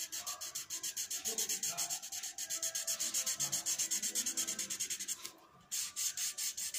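Wax crayon scribbling on a workbook's paper page, colouring in a letter with rapid back-and-forth strokes, about nine a second, with a short pause about five seconds in.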